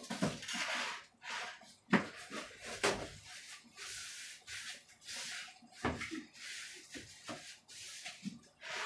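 Kitchen handling noises from working at the counter: irregular rustling with a few sharp knocks, the loudest knock about two seconds in.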